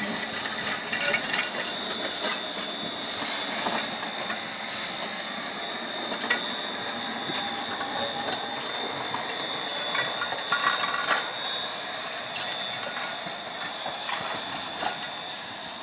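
PCC streetcar rolling slowly along the track, with irregular clicks and knocks of wheels and running gear and a steady high-pitched whine that lasts nearly the whole time.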